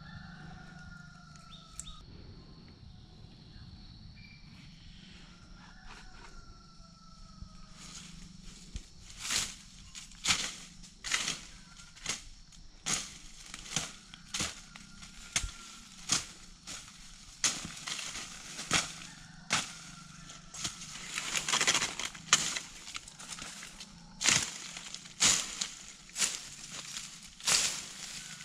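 Machete chopping through brush and small stems, one sharp stroke about every second, starting several seconds in.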